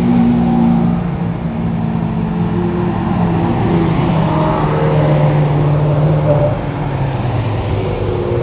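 Ferrari sports car engines running and revving as a line of cars drives past. Several engine notes overlap, rising and falling, with the loudest rise about four to six seconds in.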